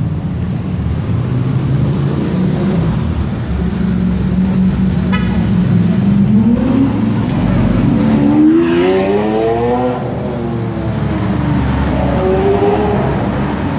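Lamborghini Aventador's V12 engine rumbling as the car drives past, then revving with a pitch that climbs steadily from about six and a half to ten seconds in. A second, shorter rev comes near the end.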